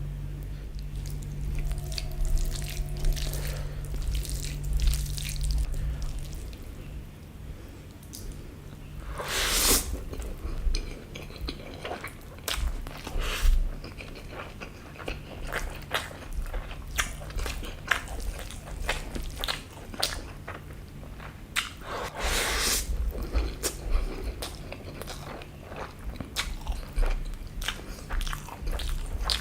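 Close-miked eating: chewing and biting with many short wet mouth clicks and smacks. There are two longer noisy swishes, one about ten seconds in and one about twenty-two seconds in, over a steady low hum.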